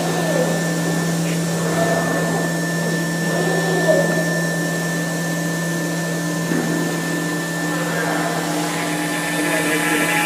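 A CNC wood router running: a steady machine drone with a thin, constant high whine over it.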